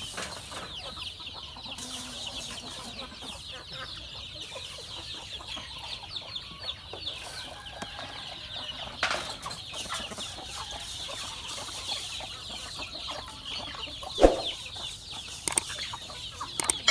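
A flock of chickens clucking, with dense, continuous high chirping. A sharp knock comes about 14 seconds in.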